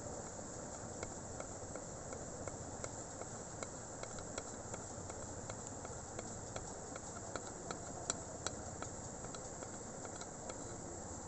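Steady background hiss with light, irregular ticks and clicks, two or three a second, and a couple of louder clicks about eight seconds in.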